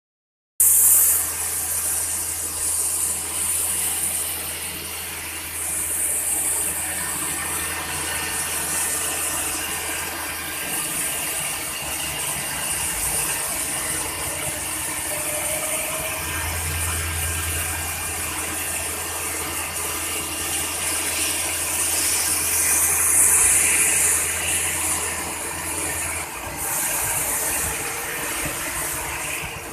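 CNC machine running with a steady mechanical hum. A low drone drops out twice and comes back, and spells of high hissing come and go every few seconds.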